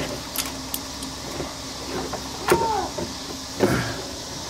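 Old serpentine belt of a 2011 Ford Focus being worked off its pulleys with the tensioner released: a few scraping clicks, a brief falling squeak about halfway through, and another short scrape near the end, over a steady low hum.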